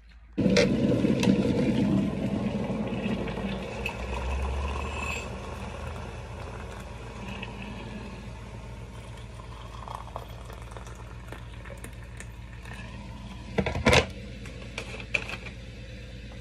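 Hot water poured from a stainless-steel kettle into mugs: a loud splashing rush that starts suddenly, then settles into a quieter steady pour. A couple of sharp knocks near the end.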